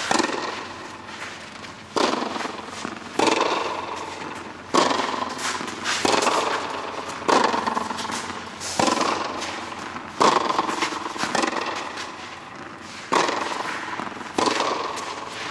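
Tennis ball struck by rackets in a baseline rally: a sharp pop about every one and a half seconds, around eleven in all, each ringing on in a reverberant indoor hall.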